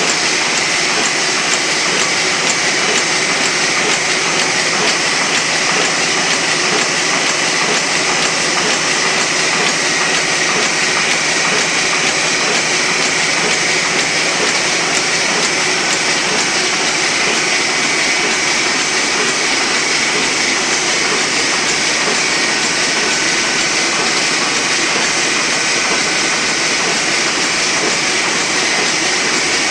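Heidelberg MOZP two-colour offset printing press running at a constant speed: a dense, steady mechanical clatter with a faint high whine under it.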